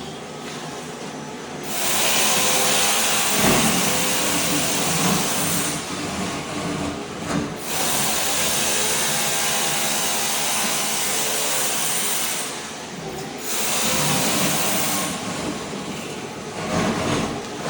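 Ride-on floor scraper running, its blade scraping thin-set tile mortar off a concrete slab. The loud scraping hiss swells about two seconds in, drops back briefly about two-thirds of the way through, then picks up again.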